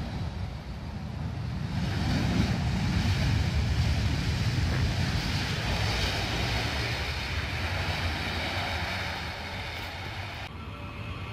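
Airbus A320 jet airliner's engines running as it taxis, a steady rumble with a faint high whine that swells about two seconds in and eases off later, with wind buffeting the microphone. The high whine drops out abruptly near the end.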